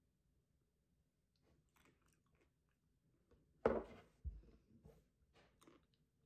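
A stoneware bowl set down on a wooden tabletop: one sharp knock about three and a half seconds in, then a duller thud. Faint scattered small clicks and taps come before and after.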